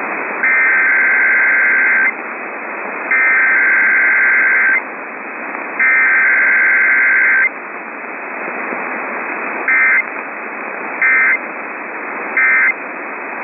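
Emergency Alert System SAME digital data bursts: three long, buzzy two-tone header bursts, then three short end-of-message bursts, over a steady radio hiss. No attention tone or spoken message comes between them, as in a required weekly test.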